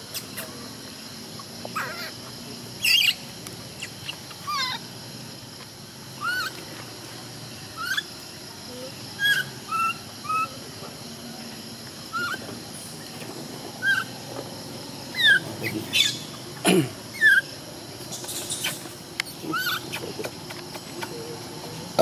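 Short high-pitched chirping calls, each a quick hooked glide, repeated at irregular intervals and thickest in the second half. One lower call falls steeply in pitch near the end.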